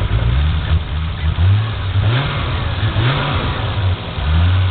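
Toyota Supra 7M straight-six engine running, with several short throttle blips about one to three seconds in before it settles back. The owner says this motor has a rod knock.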